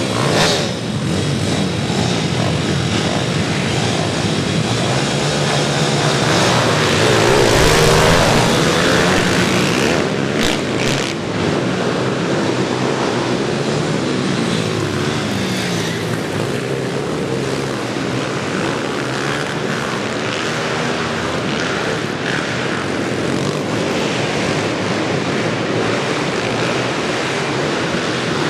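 Several pit bike engines running together, revving up and down in pitch as the riders pull away and ride the track; loudest about eight seconds in, then a steady mixed drone of engines.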